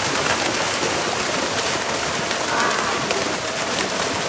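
A dense mass of fish leaping and splashing in a net drawn through shallow water: a steady, rain-like patter of splashes with many sharp slaps.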